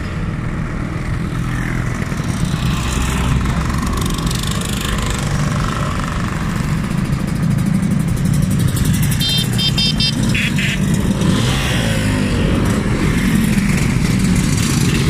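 A procession of classic scooters riding past one after another, with their small engines running steadily and overlapping, getting a little louder toward the end.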